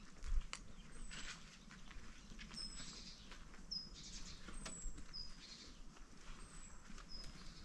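Birds chirping: short, high, falling notes repeated roughly once a second, with soft footsteps at a walking pace.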